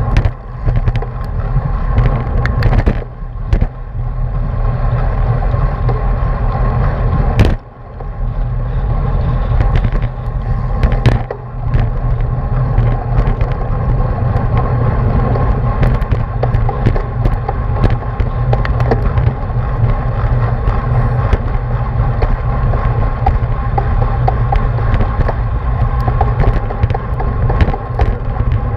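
Wind rushing and buffeting over the microphone of a bicycle-mounted action camera riding at racing speed in a bunch, with rumbling road and tyre noise and scattered small clicks. The rush drops away briefly a few times, most sharply about seven and a half seconds in.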